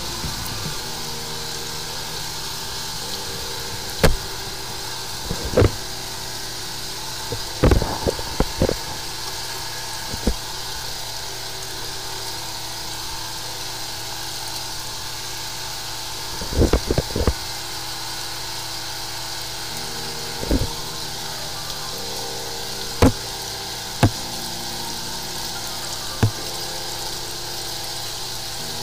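High-pressure sewer jetter running steadily, its engine-driven pump jetting water down a blocked drain line through the hose. Short sharp knocks come now and then, a cluster of them about eight seconds in and another near the middle.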